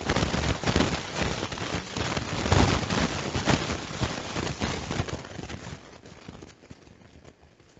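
Rustling and crackling of fabric and craft materials being handled, a dense run of irregular crackles that dies away over the last couple of seconds.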